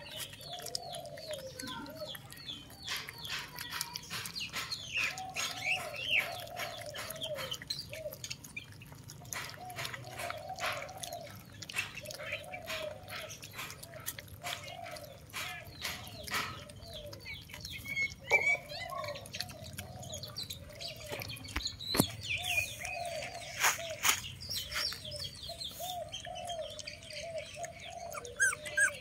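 Puppies eating, with many quick sharp clicks and crunches from the feeding, while birds call over and over in the background.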